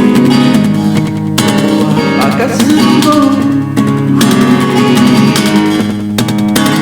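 Acoustic guitar strumming chords in an instrumental passage of the song, with no singing.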